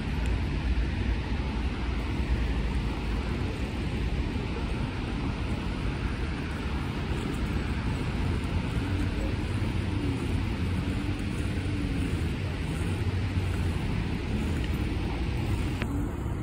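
Steady city street noise: a low traffic rumble with no distinct single event, and a faint wavering hum partway through.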